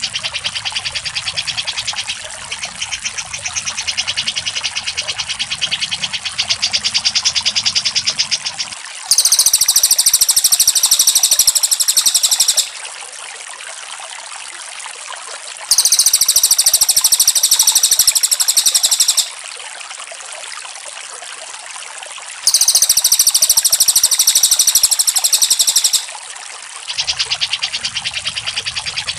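Recorded songbird training song of cak jenggot and cililin. A long, rapid chattering trill over a low hum runs for about the first nine seconds. Then come three loud, very fast high trills of about three seconds each, a few seconds apart, with a steady hiss between them, and the chattering trill returns near the end.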